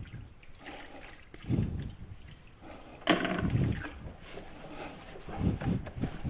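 Large sponge being dunked and squeezed in a bucket of water, sloshing and splashing in irregular bursts as drywall mud is rinsed off; the loudest splash starts sharply about three seconds in.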